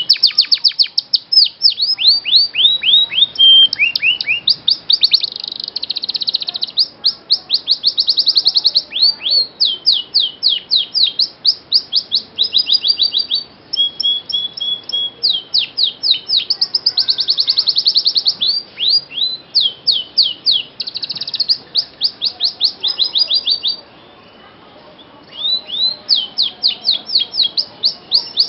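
Domestic canary singing a long, loud song of fast trills made of rapid downward-sweeping notes, varied from phrase to phrase, with one brief pause about three-quarters of the way through.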